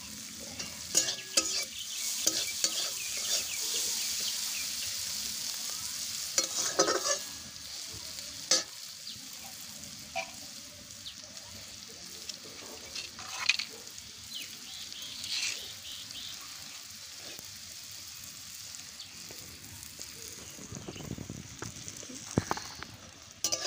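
Onion, garlic and green chillies sizzling in oil in a metal karahi, with a metal spatula scraping and clinking against the pan every few seconds as they are stirred. The sizzle is stronger in the first several seconds, then settles to a quieter steady hiss.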